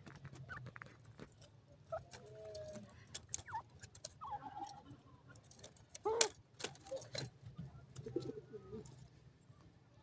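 Grey francolins giving soft clucks and short calls while feeding, with the loudest call about six seconds in, mixed with sharp taps from their beaks pecking at the soil. A low steady hum runs underneath.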